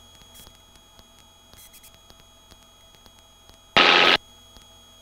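Helicopter in flight heard faintly through the crew's headset intercom as a low steady drone with faint steady tones. A short burst of noise comes about four seconds in.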